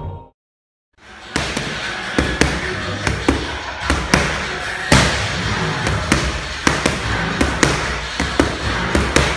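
Boxing gloves striking padded focus mitts in quick combinations, a few sharp slaps a second at uneven spacing, starting about a second in.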